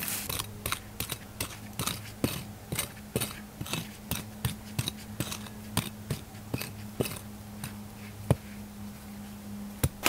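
Small pick mattock chopping and scraping into forest soil and leaf litter, quick repeated strikes about two to three a second.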